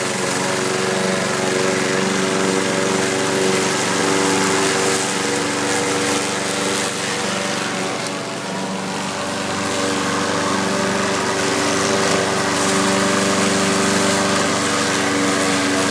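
Lawn mower engine running steadily, dipping slightly in level about eight seconds in.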